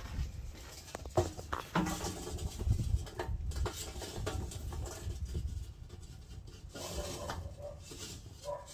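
Lit olive-pit charcoal briquettes being shaken out of a metal chimney starter into the charcoal basket of an Oklahoma Joe Bronco Pro drum smoker. The briquettes tumble onto the unlit ones in an uneven run of rattling and clattering against the metal, loudest in the first few seconds.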